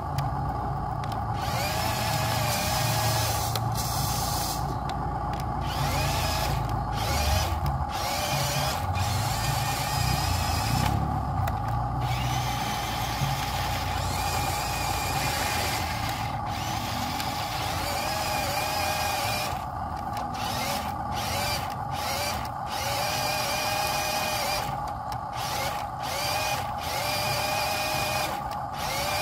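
Small electric motors and gearboxes of RC model trucks whining steadily under load, the pitch wavering up and down as the trucks strain in deep mud, over a low rumble.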